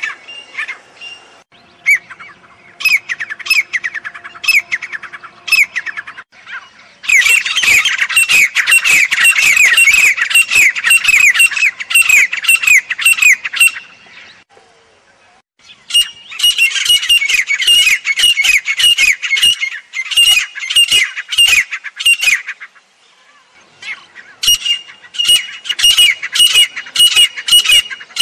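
Grey francolin (teetar) giving its loud, rapidly repeated calls in several bouts of a few seconds each, separated by short pauses; the middle bout is the densest and loudest.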